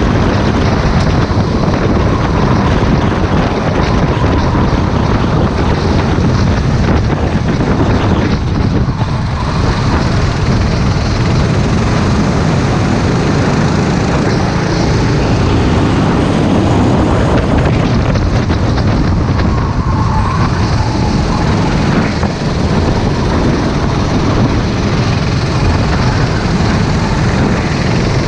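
Racing kart engine heard from on board at race pace, loud and steady, with other karts running close ahead.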